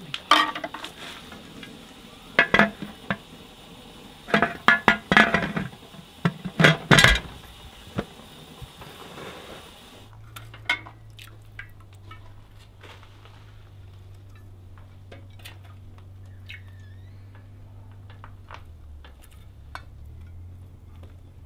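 Glass canning jars clinking against each other and against the aluminium Presto pressure canner as they are loaded into it: a string of sharp clinks and knocks over the first ten seconds. After that only a quieter steady low hum with a few light ticks.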